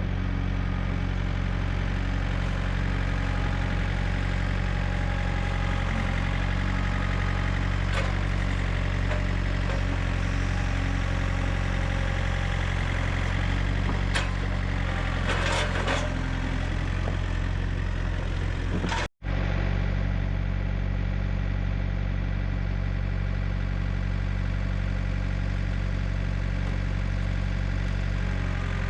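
WoodMizer LT35 sawmill's engine running steadily, with a few sharp clicks and knocks from the mill in the middle; the sound breaks off for an instant about two-thirds through and resumes unchanged.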